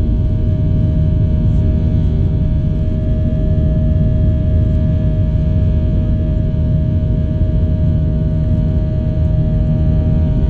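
Cabin noise of a Boeing 737-800 in its initial climb after takeoff: its CFM56-7B engines at climb power give a steady low rumble with several steady humming tones on top, heard from inside the cabin.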